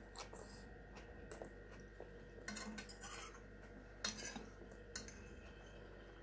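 A metal fork clinking and scraping against a frying pan as fried potatoes are picked up, a few faint strokes with the sharpest clink about four seconds in.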